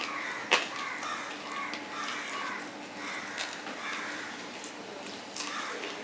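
Close-miked eating by hand: fingers mixing rice and fried hilsa on a steel plate, with chewing and mouth sounds. A few sharp clicks stand out, the loudest about half a second in and another near the end.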